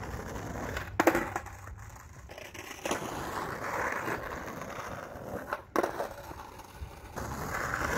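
Skateboard wheels rolling on asphalt, a steady rumbling hiss, broken by a loud sharp clack of the board about a second in and another just before six seconds, as the skater tries ollies.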